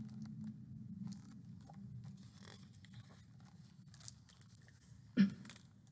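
Paper pages of a large picture book being handled and turned, with faint rustles and light ticks over a low steady hum, and a brief low thump about five seconds in.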